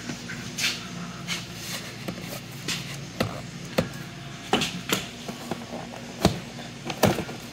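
Hard plastic snowmobile intake plenum knocking and clicking against the surrounding body panels as it is pushed and worked into place: about ten sharp, irregularly spaced knocks.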